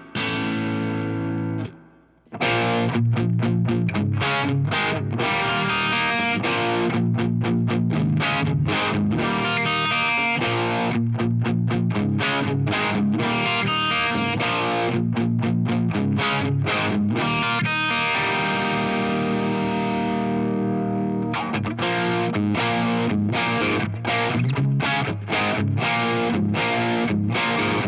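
Electric guitar played through an MXR Duke of Tone overdrive pedal into a Laney Lionheart Loudpedal, with Vintage 30 cabinet impulse responses. A held overdriven chord dies away into a short gap about two seconds in. Then comes a riff of short, choppy chord stabs, with one long ringing chord a little past the middle.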